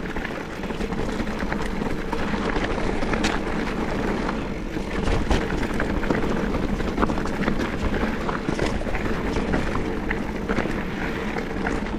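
Mountain bike rolling down a dirt trail: steady tyre and wind noise, with many short clicks and rattles from the bike going over rocks and roots.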